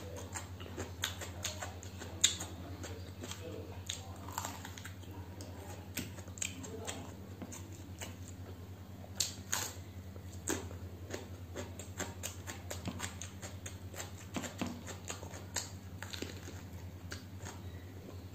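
Close-miked eating sounds: chewing and wet mouth smacks with many small scattered clicks as rice and curry are eaten by hand, including bites of raw onion. A steady low hum runs underneath.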